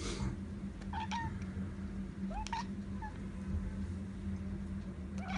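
Tabby cat giving about four short, rising chirps while staring out of a window, the chattering call a cat makes when watching birds it cannot reach. A steady low hum runs underneath.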